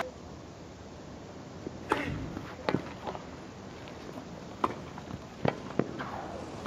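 Tennis ball struck back and forth by racquets in a rally: a series of sharp single pocks roughly a second apart, the first and loudest about two seconds in.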